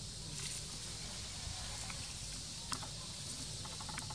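Forest ambience: a steady high insect hiss over a low rumble, with a few faint sharp clicks, the clearest a little before three seconds in and a short run of them near the end.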